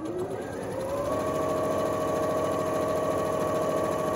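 Janome electronic sewing machine stitching a fabric strip: its motor rises in pitch as it speeds up over about the first second, then runs at a steady fast pace with an even stitch rhythm.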